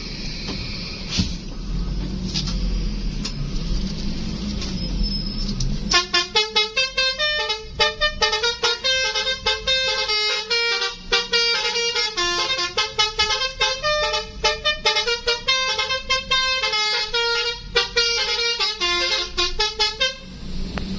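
Basuri telolet horn playing a fast melody of short, jumping multi-tone notes. It starts about six seconds in after a low rumble and cuts off near the end.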